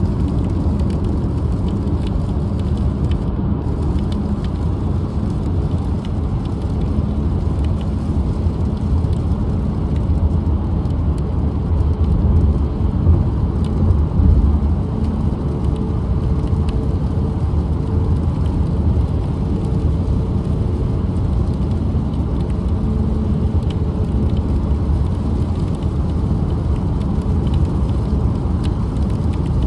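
Steady low road noise of a car driving along a highway, heard from inside the cabin: tyre and engine rumble.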